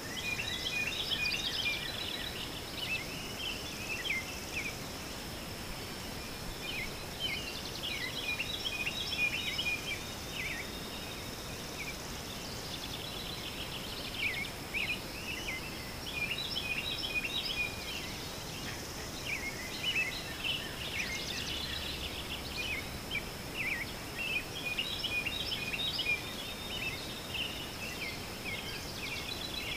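Many small birds chirping and twittering in repeated bursts of short, quick notes, over a steady thin high-pitched whine.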